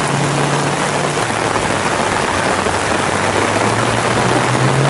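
Heavy rain falling steadily, a dense hiss. A rally car's engine dies away in the first second, and another car's engine comes in and rises in pitch near the end.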